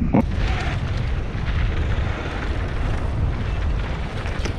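Wind buffeting the action-camera microphone on a mountain bike riding down a trail: a steady low rumble with an even rushing hiss over it, mixed with the bike rolling over the trail.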